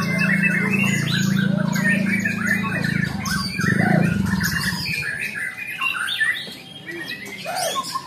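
Several caged white-rumped shamas singing at once in a contest, a dense tangle of short, quick, overlapping phrases. A steady low hum sits under the song and fades out about halfway through.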